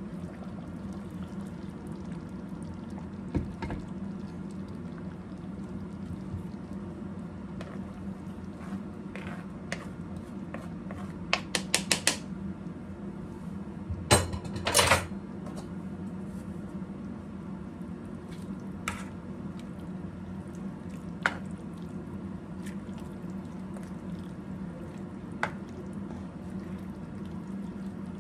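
A pot of potato-and-mince stew simmering on an induction hob under a steady low hum, with scattered clicks of utensils. A quick run of metal clinks comes just before the middle, and the loudest clanks just after it, as the pot's lid is handled.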